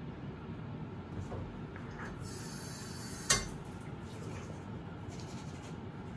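Toothbrush scrubbing teeth in short scratchy strokes during the second half, with a brief hiss and a single sharp click about three seconds in.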